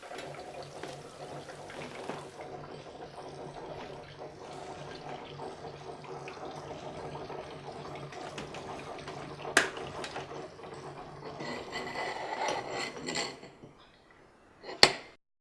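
Water running from a homemade coffee-making machine, with a steady low hum beneath it. There is a sharp click about ten seconds in and a louder one near the end.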